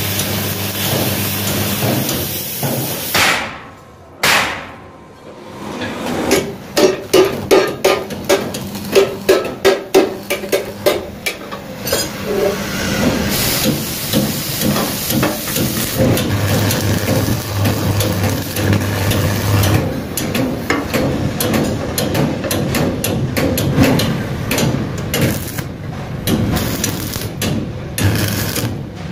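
Hammer blows on steel, a quick run of about two a second for several seconds, set among the crackle and hiss of stick (arc) welding on a steel trolley frame, with a low hum now and then.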